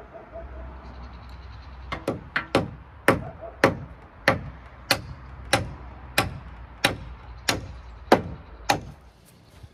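A hammer striking wood: a few quick light taps about two seconds in, then about ten steady full blows, roughly one every two-thirds of a second.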